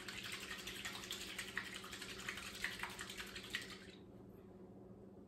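Oil-and-vinegar salad dressing sloshing and splashing in a lidded shaker bottle as it is shaken by hand, with many small rapid splashes; the shaking stops about four seconds in.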